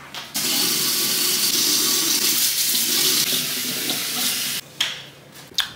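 Kitchen faucet running into a stainless steel sink as dishes are washed by hand, cutting off suddenly about four and a half seconds in. Two sharp clicks follow near the end.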